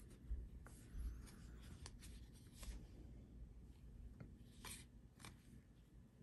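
Faint rustling of basketball trading cards being flipped through by hand, with scattered soft ticks as card edges slide off the stack and brush against each other.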